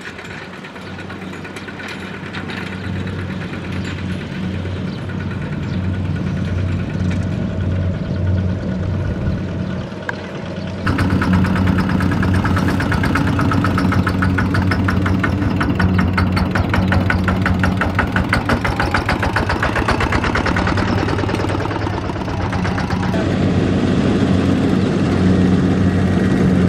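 Single-cylinder diesel engine of a two-wheel walking tractor running steadily, growing louder over the first ten seconds as it comes closer. About eleven seconds in the sound jumps suddenly to a louder, closer engine.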